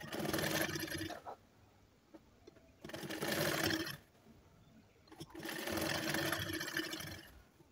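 Sewing machine stitching through layered fabric in three short runs, each a second or two long, with brief stops between.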